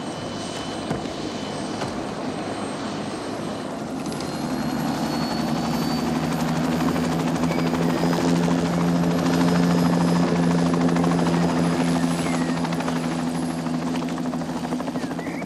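Light turbine helicopter lifting off: rotor thrum and a thin high turbine whine grow louder through the first half, peak, then ease off as it flies away.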